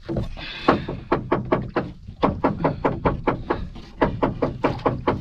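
A freshly landed fish flapping against the boat's wooden deck: a quick run of hollow knocks, about five a second, with a short break about four seconds in.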